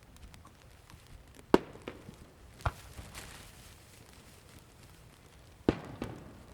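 Aerial fireworks shells bursting: three sharp bangs, the loudest about a second and a half in, one near three seconds and one near the end, each followed by a smaller, softer report.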